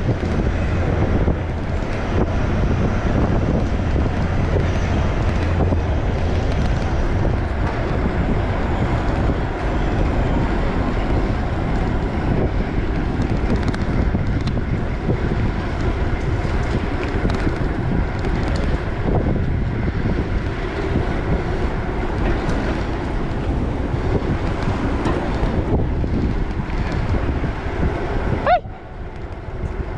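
Wind rushing over the microphone of a rider on a moving bicycle, mixed with street traffic noise. The sound is steady and dips briefly near the end.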